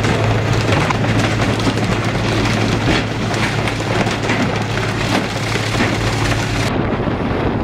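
Wet, spattering deck noise of water and tuna sliding down a fishing boat's steel chute into a holding bin, over a steady low engine hum. The sound changes suddenly near the end, turning duller.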